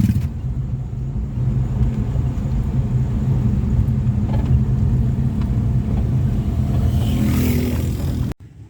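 Motor vehicle engine running steadily with a low rumble, which cuts off abruptly near the end.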